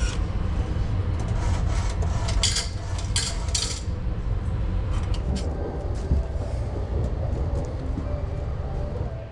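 Steady low rumble of the sleeper train running, heard from inside the carriage. A few sharp metallic clinks come between about two and a half and four seconds in, as change coins drop from a shower-card vending machine after a 1000-yen note pays for a 330-yen card.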